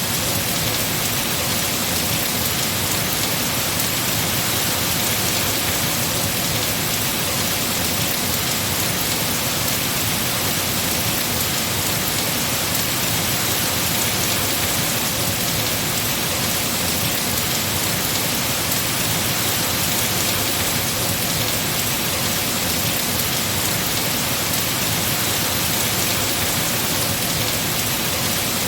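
Heavy rain falling steadily on trees and foliage, an even hiss with no breaks.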